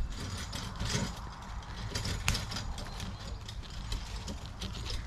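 A laden wheeled barrow or trolley carrying a washing machine along a towpath, rattling and clicking irregularly over a low rumble, with one sharper knock a little past two seconds in.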